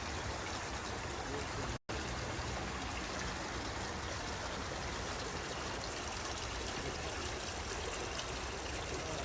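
Water from a small garden fountain running and trickling steadily, broken by a brief gap about two seconds in.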